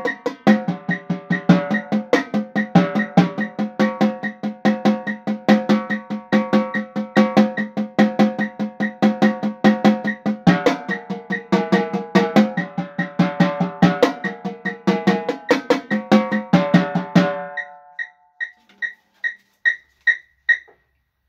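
Marching tenor drums played with sticks in a fast, dense pattern that moves around the different-pitched drums. The playing stops about three-quarters of the way through, leaving a steady series of short high ticks, about two to three a second, keeping the beat alone until shortly before the end.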